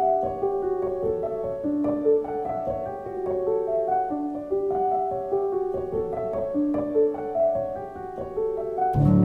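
Background music: a melody of single notes, with deeper held low notes joining in near the end.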